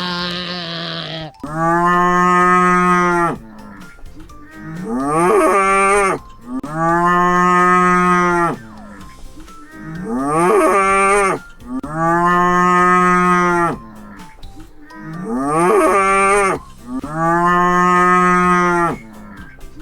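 Cow mooing over and over in a regular repeating pattern: a long, steady moo of about two seconds, then a shorter moo that rises in pitch, the pair coming round about every five seconds.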